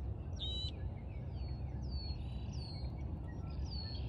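Several small birds calling: many short, high, falling chirps, a brighter ringing call about half a second in, and a couple of buzzy calls near the middle and end. A steady low rumble runs underneath.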